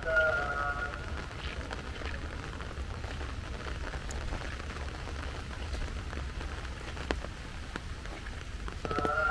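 Rain falling steadily on hard surfaces, a continuous hiss with a low rumble under it and a few scattered sharp drop ticks.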